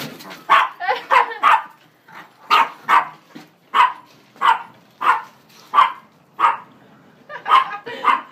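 A dog barking over and over, about a dozen barks, some coming in quick pairs. This is territorial barking at a newcomer dog.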